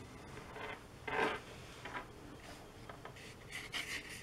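Faint swishes of a paintbrush stroking over watercolour paper: one fuller stroke about a second in, then several short strokes near the end.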